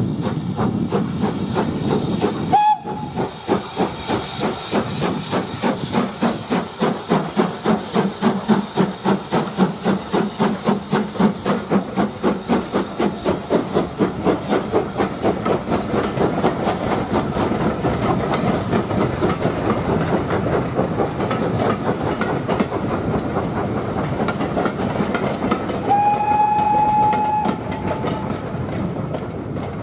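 Steam locomotive hauling a passenger train past at close range: strong, even exhaust beats about two to three a second as it works, then the coaches clattering over the rail joints. The whistle sounds briefly about three seconds in and again for about two seconds near the end.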